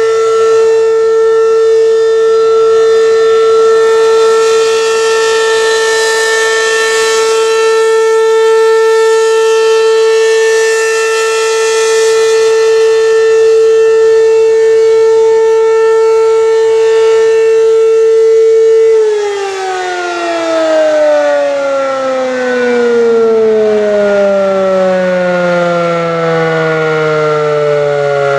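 American Signal RM-127 outdoor warning siren sounding a loud, steady tone. About two-thirds of the way through it begins to wind down, its pitch falling steadily.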